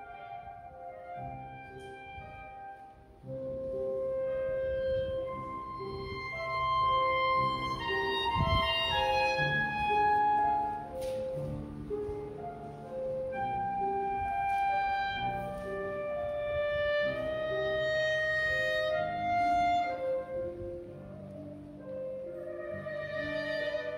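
Instrumental background music with a melody of sustained notes, soft for the first three seconds and fuller from about three seconds in.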